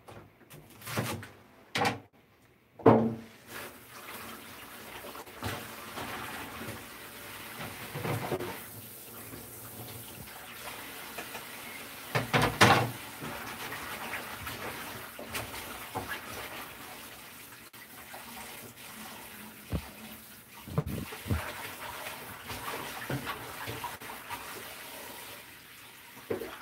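Kitchen tap running water into a sink while celery is rinsed under it. Several sharp knocks come in the first few seconds, and a louder clatter about twelve seconds in.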